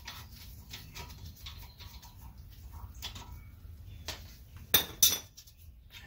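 Light metal clicks and ticks as the bottom caliper bolt on a 2015–2019 Subaru Outback front brake is turned out with a ratcheting wrench, then a few louder metallic clinks about four to five seconds in.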